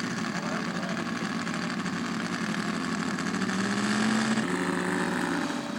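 Seven-cylinder Seidel model radial engine of a scale Staggerwing Beech running steadily in flight just after takeoff. Its pitch shifts slightly about four and a half seconds in.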